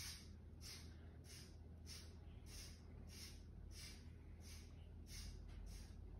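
Faint, soft swishes of a paintbrush stroking black paint onto a paper plate, about two to three strokes a second, over a low steady hum.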